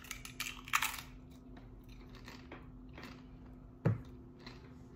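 Crunchy bites into a tortilla chip with guacamole, crackling sharply in the first second, then softer chewing. A single short thump just before the end.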